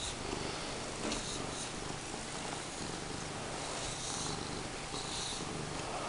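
Domestic cat purring steadily while it is groomed, with a few soft brush strokes through its fur about a second in and again around four to five seconds in.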